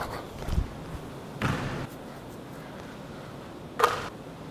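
Basketball bouncing on a hardwood gym floor: a few separate thuds about half a second, a second and a half, and near four seconds in, the last one the sharpest.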